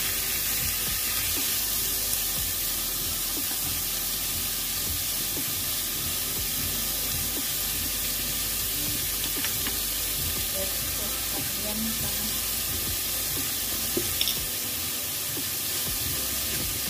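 Pork rib pieces with garlic and onion sizzling steadily as they fry in a pot, with a couple of faint clicks about 14 seconds in.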